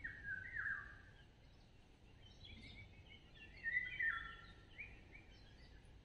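A songbird singing: a short phrase of falling, slurred notes in the first second, then a longer, louder phrase of falling notes from about two to five seconds in.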